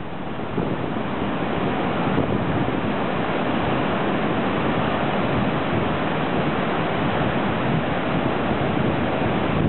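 Heavy surf breaking and washing up the beach, a steady rush of white water.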